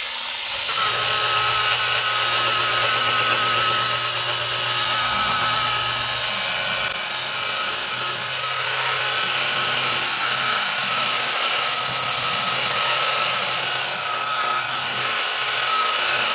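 Electric rotary polisher running steadily, its white buffing pad pressed on a car's painted bumper to buff out scratches: a constant motor whine.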